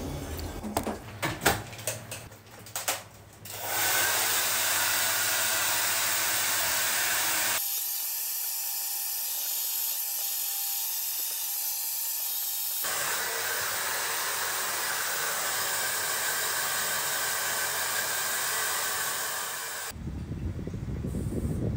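A few sharp clicks and knocks at first. Then a steady rush of blown air from an electric appliance runs for most of the rest, with a quieter, thinner stretch in the middle that carries a faint hum.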